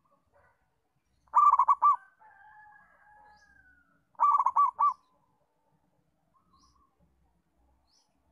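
Zebra dove (perkutut) cooing: two short runs of four or five quick coo notes about three seconds apart, with a fainter long, slightly falling tone between them. A few faint high chirps from small birds come and go.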